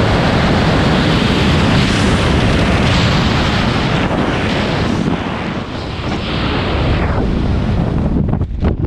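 Loud, steady rush of air blasting over the microphone of a camera carried in wingsuit flight. It turns choppy and buffeting near the end.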